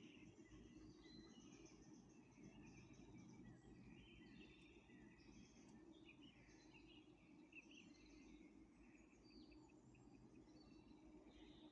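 Faint birdsong, many small birds chirping and trilling, over a low steady background hum of outdoor ambience.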